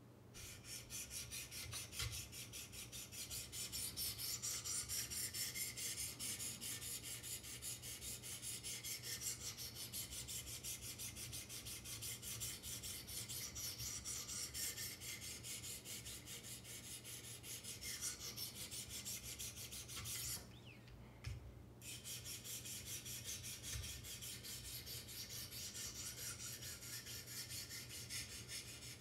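600-grit diamond sharpening stones on a Wicked Edge guided sharpener stroking along a steel knife edge, a fast, continuous rasping scrape of repeated strokes with a short break about twenty seconds in.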